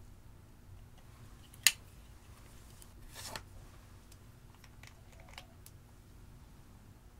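Handling of plastic makeup packaging on a table: one sharp plastic click about a second and a half in, a short scraping rustle a couple of seconds later, then a few light clicks as cosmetic containers and a squeeze tube are picked up and moved.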